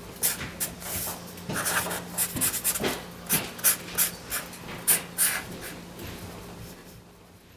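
Felt-tip marker drawing on paper: a quick, irregular run of short scratching strokes that thin out and fade over the last couple of seconds, over a faint steady hum.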